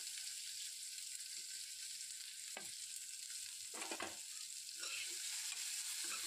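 Sliced onions sizzling in hot mustard oil in a kadhai, a steady frying hiss, with a few light knocks against the pan from about the middle on as the onions are stirred.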